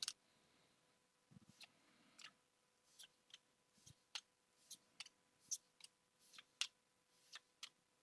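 Faint, irregular clicks and flicks of Pokémon trading cards being slid and flipped one by one in the hand, about two a second, with a soft low thump or two early on.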